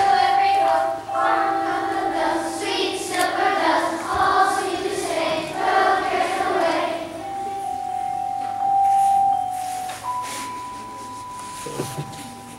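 Children's choir singing, with a steady held note underneath. About seven seconds in the singing stops, and a few long, steady single notes follow.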